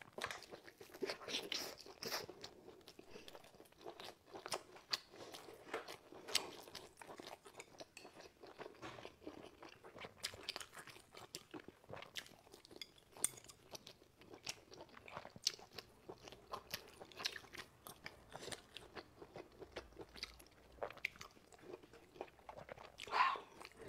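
Close-up chewing of braised meat: irregular sharp smacks and clicks of the mouth and teeth working through the food, with a slightly louder mouth sound near the end.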